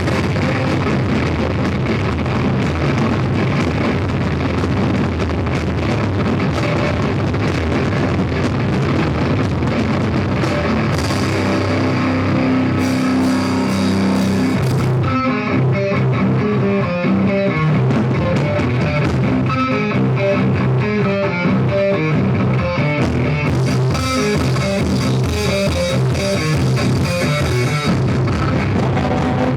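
Rock band playing live, poorly recorded: distorted electric guitars over bass and a drum kit. About halfway through, the playing breaks into short, clipped stop-start chords.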